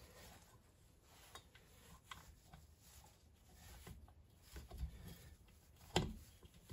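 Faint clicks and small knocks of a metal cylinder being worked down over the piston and rings onto the crankcase of a Husqvarna 252RX two-stroke trimmer engine, with one sharper knock about six seconds in.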